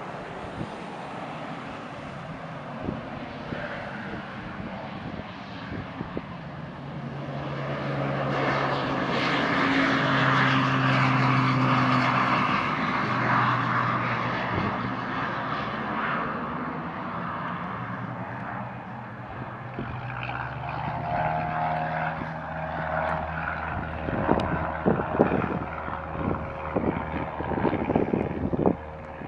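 SOCATA TBM 700 single-engine turboprop at takeoff power, its turbine and propeller growing louder as it rolls down the runway, loudest as it passes, then fading as it climbs away. Irregular thumps of wind on the microphone come in near the end.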